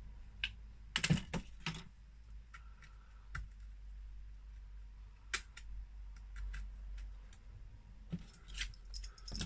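Scattered small plastic clicks and taps, with a cluster about a second in and several quick ones near the end, as plastic pry picks are worked around the edge of a laptop display held in by adhesive. A low steady hum runs underneath.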